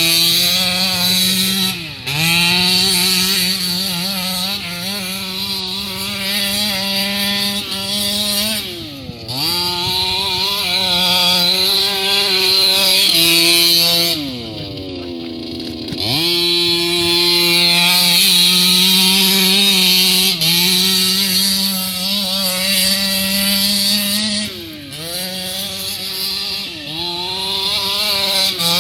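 Two-stroke petrol engine of a 1:5-scale Rovan Baja 5B RC buggy running at high revs. The throttle is lifted four times, the pitch dropping and climbing back each time. About halfway through it falls to a lower, quieter run for a couple of seconds before revving up again.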